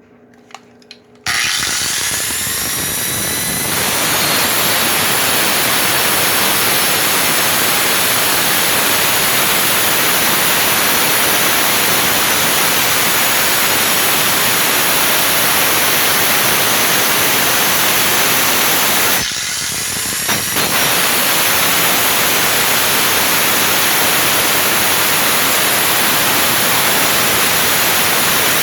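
A power tool starts with a rising whine and runs steadily, cutting open a lawn tractor's steel muffler shell. It stops briefly about two-thirds of the way through, then starts up and cuts on.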